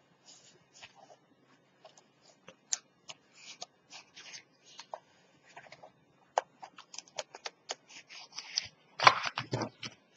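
Paper and chipboard being handled: scattered crisp rustles and small clicks as stiff strips are shifted and lined up, with louder rubbing and knocks about nine seconds in as the piece is laid flat and pressed down.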